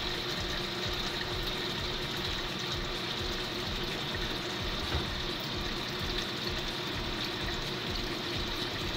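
Water pouring steadily from the fill inlet into the empty tub of a Haier HLP21N portable washing machine during its fill stage.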